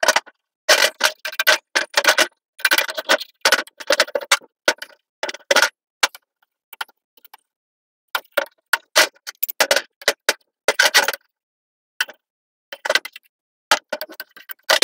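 A gasket scraper scraping old gasket material off the head-gasket face of a Briggs & Stratton overhead-valve cylinder head, in quick runs of short strokes. The scraping pauses for a couple of seconds about halfway through and briefly again a little later.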